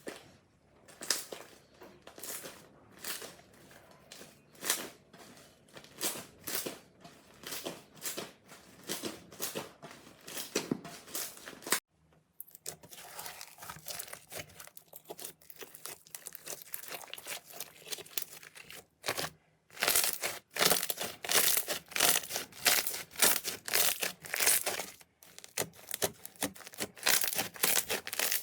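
Slime being squeezed and pressed by hand, giving repeated short crinkly, crackling pops. The pops come about once a second at first, then change character after breaks about 12 and 19 seconds in. The last part is louder and denser.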